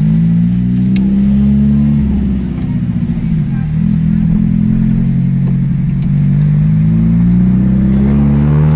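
Chevrolet Kadett four-cylinder engine with a straight-pipe exhaust, heard from inside the cabin, pulling away under throttle. It eases briefly about two and a half seconds in, then climbs steadily in pitch toward the end.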